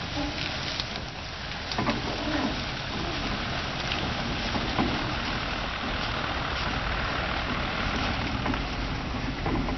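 Narrow-gauge railway carriage being pushed by hand and rolling slowly along an overgrown track: a steady rumble of the wheels on the rails, with a few scattered knocks.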